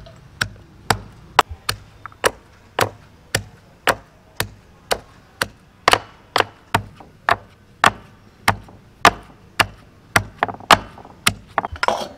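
Metal pestle pounding ginger and garlic in a small stone mortar: steady, sharp knocks at about two strokes a second, crushing them coarsely rather than grinding to a paste.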